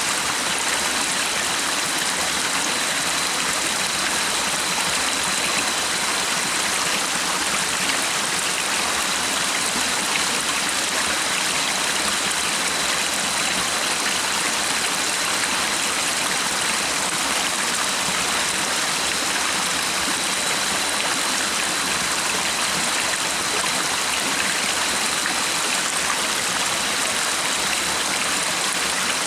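Stream water rushing and babbling in a steady, even flow. A thin, steady high tone runs faintly beneath it throughout.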